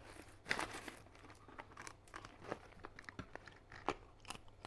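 Snack bag crinkling as in-shell sunflower seeds are shaken out, then a run of short crunches and sharp cracks as the seeds are bitten and chewed.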